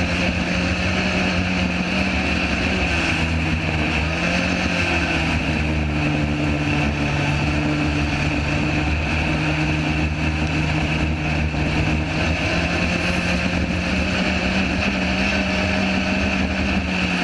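Onboard sound of a sand rail driving over dunes: its engine runs at a fairly steady pitch with small shifts, over a steady rush of noise.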